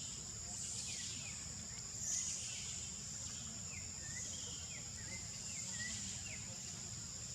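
Outdoor ambience of a steady high-pitched insect drone, with short falling chirps scattered over it and one brief louder noise about two seconds in.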